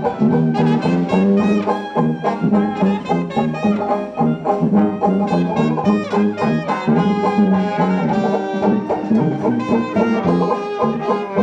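Live band playing jazz, led by brass horns.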